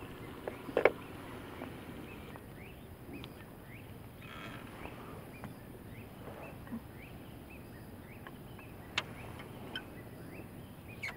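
Birds chirping in short, scattered rising notes over a steady background hiss, with a sharp knock about a second in and another near the end.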